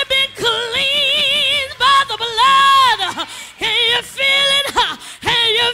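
A woman singing a gospel song in several short phrases, holding long notes with a wide vibrato.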